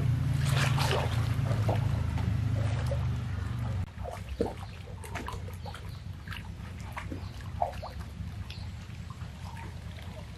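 River water splashing and sloshing in irregular small splashes as a man scrubs and splashes a large elephant lying in a shallow river. A low steady hum, the loudest sound, runs under the first four seconds and then cuts off.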